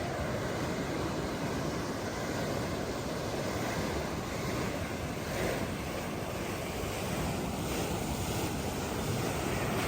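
Sea waves washing onto the beach in a steady surf, with wind buffeting the microphone.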